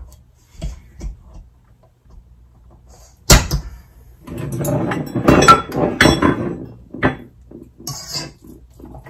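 Kitchen items being handled on a counter beside a stand mixer: a sharp knock about three seconds in, then a couple of seconds of clattering and rattling, and a few lighter clicks near the end.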